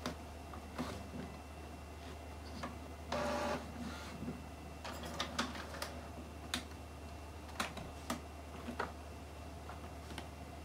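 Epson XP-6000 inkjet printer partway through its initial ink-charging cycle: a short mechanical whir about three seconds in, among scattered sharp clicks and taps from its plastic lid and body being handled.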